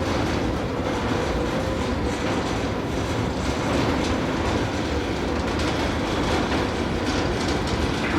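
Hilton Waikoloa Village resort tram running on its track, a steady rumble with scattered clicks of the wheels over the rails.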